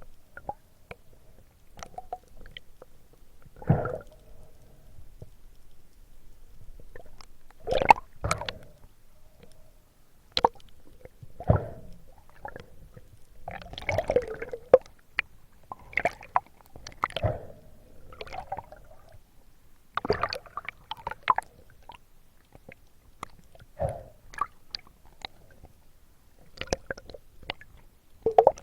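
Water gurgling and sloshing in irregular bursts, with short splashes every second or two.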